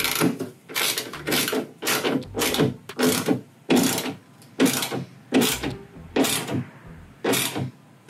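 Hand screwdriver driving the T30 Torx screws back into the new trunk-lid handle, with short rasping clicks about once or twice a second as the tool is turned.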